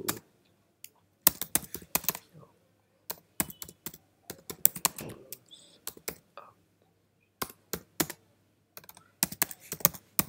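Computer keyboard being typed on, keystrokes coming in quick irregular bursts with short pauses between them.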